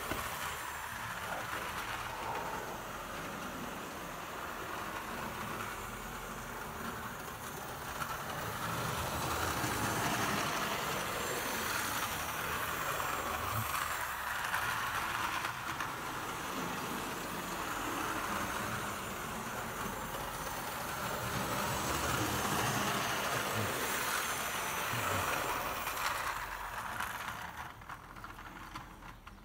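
Smoky Joe model steam locomotive running on its layout track with a string of coaches: a steady motor whirr and wheels rattling on the rails. It swells louder twice as the train comes round past the microphone and falls away near the end.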